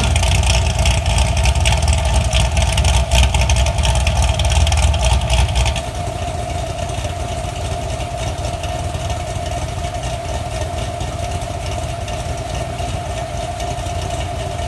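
Chevrolet C6 Corvette Z06's modified LS7 V8 (heads, cam, intake and exhaust work) idling through its NPP valved exhaust, loud with the valves open in Wild mode. About six seconds in it drops suddenly to a noticeably quieter, steady idle as the exhaust switches to Mild.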